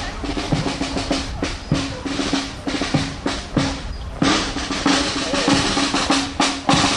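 Marching band's drums beating a march cadence: quick snare drum strokes and rolls over bass drum beats, with a short break about four seconds in.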